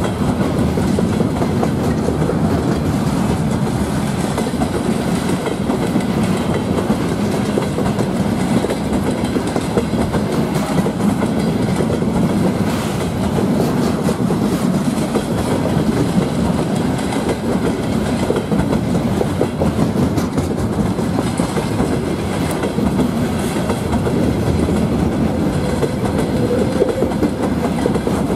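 Loaded timber wagons of a long freight train rolling steadily past at close range, the wheels running over the rails.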